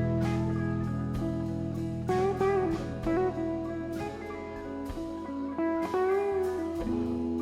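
Background music: a live rock band recording with electric guitar playing held notes that bend in pitch over a steady bass line.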